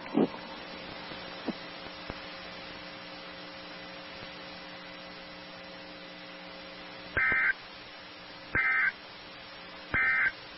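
A steady low hum with a few faint clicks in the first two seconds, then three short electronic data bursts about a second and a half apart near the end: the SAME end-of-message code that closes a NOAA Weather Radio alert broadcast.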